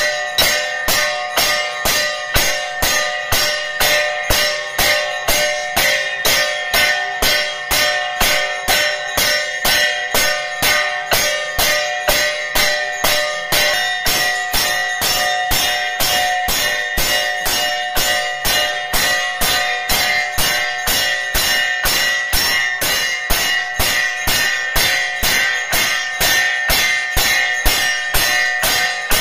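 Temple bell struck over and over in a steady, even rhythm, about two strokes a second, its ringing carrying on between strokes, as rung during aarti.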